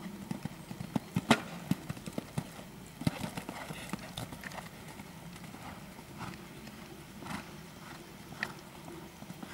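Hoofbeats of a Holsteiner mare cantering on sand arena footing: dull, irregular thuds, the loudest about a second in. Near the end she jumps a fence.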